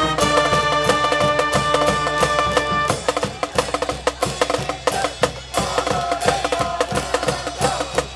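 High school baseball cheering band playing a cheer song: held brass chords over drums, then about three seconds in the brass drops out for a drum-and-percussion break before the brass comes back in.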